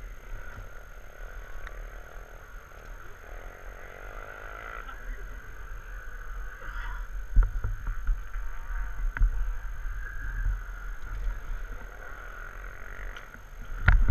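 Motorcycle engine noise rising and falling, heard through wind buffeting on a helmet-mounted microphone. A few sharp knocks come from about seven seconds in, with a louder cluster at the very end.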